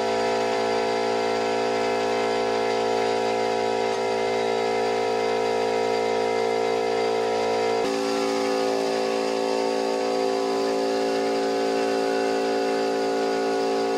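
Power sander with shop-vacuum dust extraction running steadily while sanding a wooden drum hoop; its tone changes slightly about eight seconds in.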